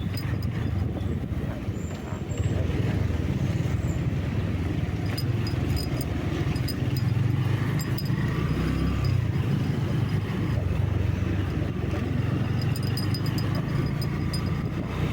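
Steady low rumble of a vehicle on the move, engine and road noise together, which gets a little louder about two and a half seconds in.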